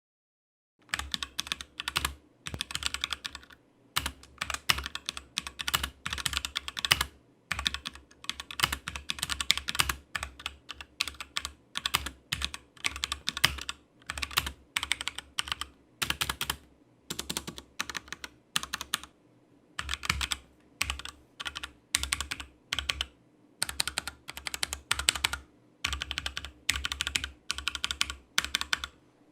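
Typing on a mechanical keyboard with HyperX Red linear switches: quick runs of key clacks with short pauses between them, starting about a second in.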